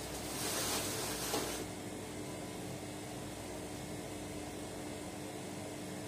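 Hotpoint Ariston front-loading washing machine running near the end of a quick wash. A noisy rush in its drum for the first second and a half cuts off, leaving a steady machine hum.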